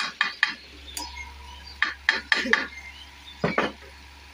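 Bajaj stand fan running with a low steady hum, its brass bushes cleaned and oiled rather than replaced, under a string of sharp clicks and metallic clinks, about nine in four seconds, as its speed setting is changed. A faint steady whine comes in about a second in.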